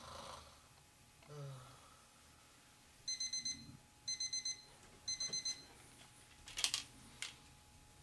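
Electronic alarm clock going off: three quick bursts of four or five high beeps each, about a second apart, starting about three seconds in. It comes after a man snores once in his sleep, and a couple of sharp knocks follow near the end.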